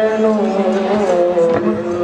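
Devotional chanting: a voice singing a slow, drawn-out melody with long held, bending notes over a steady low drone.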